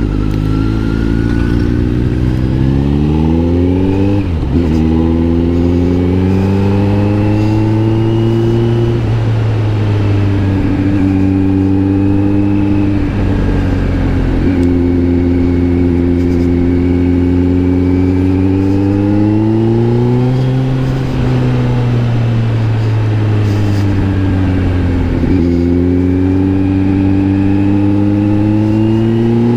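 Kawasaki Z900 SE's inline-four engine through an SC Project S1 aftermarket exhaust, heard from the rider's seat while riding. It pulls up through the revs, with sharp drops in pitch at upshifts about four seconds in, midway and near the end, and it falls off more slowly twice when the throttle is rolled off.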